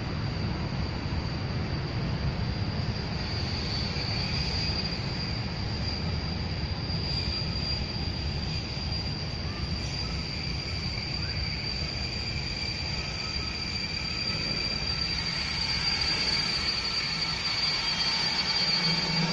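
Freight train running through a railway station: a steady low rumble with a high, steady squeal over it. The rumble grows louder toward the end as a freight train approaches.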